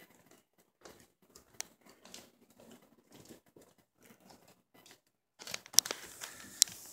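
Irregular soft rustling and crackling from a phone being carried and handled. About five and a half seconds in it turns into a louder, denser crackle with a few sharp clicks.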